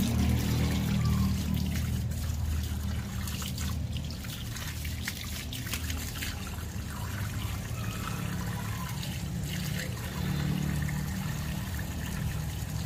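Water from a garden hose running and splashing steadily onto a wet puppy's fur and the concrete ground during a bath.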